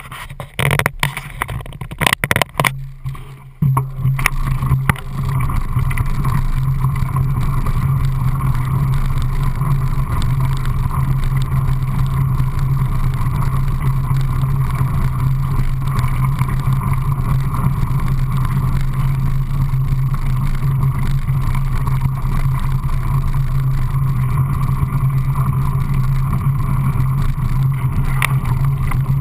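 Mountain bike rolling downhill on a gravel track: uneven knocks and clatter over the first few seconds, then a steady low drone of knobby tyres on gravel at speed.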